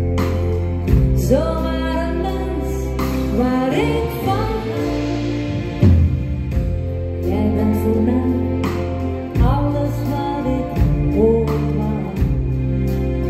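Live band music: a woman singing a Dutch-language pop song over acoustic guitar, bass and drums.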